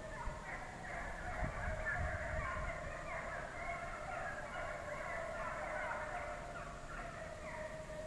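A pack of deer hounds baying on a chase, many voices overlapping in a steady chorus.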